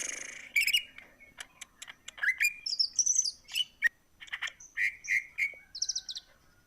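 Cucak ijo (greater green leafbird) singing a fast, varied song of short whistles, chirps and upward-sliding notes, with a brief harsh burst at the start and a quick rattling run of notes near the end.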